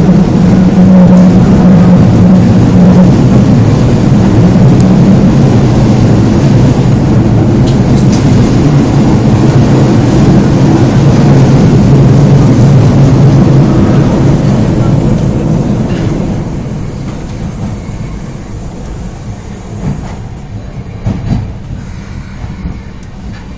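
Osaka subway 22 series train running, with a loud steady low drive hum that steps down in pitch and fades as the train slows for a station. The overall noise drops off from about two-thirds of the way in, with a few short knocks near the end.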